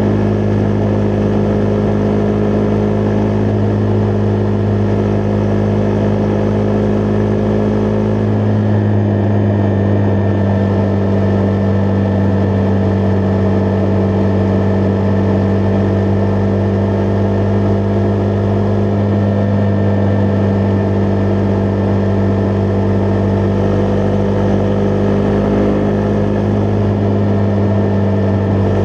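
Husqvarna Vitpilen 401's single-cylinder engine running steadily under way, its note holding almost constant with a slight change in pitch about eight seconds in.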